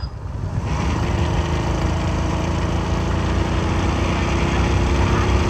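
Hero Passion XPro motorcycle's single-cylinder engine running steadily under load as the bike climbs a steep hill road, a steady hum coming in about a second in.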